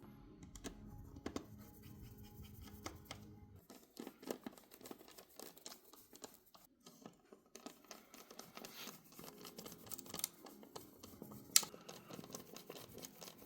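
Small clicks and scratches of a precision screwdriver and small parts being worked on a laptop's inside, with one sharper click near the end.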